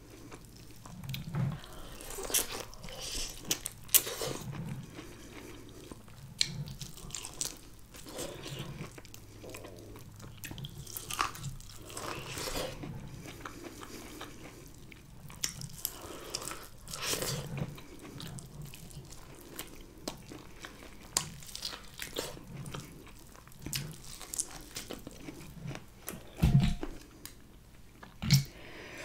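Close-miked biting and chewing of butter-sauce-soaked corn on the cob, with irregular crunchy bites and wet clicks. Near the end come two heavier knocks, the first the loudest sound of all.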